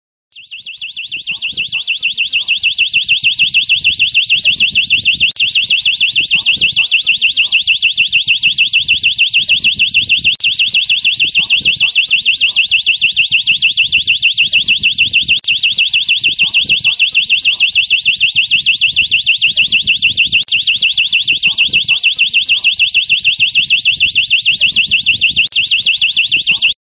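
Elephant early-warning system's electronic alarm sounding: a loud, high-pitched, rapidly pulsing tone. It swells in over the first couple of seconds, breaks off for an instant about every five seconds, and stops abruptly just before the end. It signals that a wild tusker elephant has been detected.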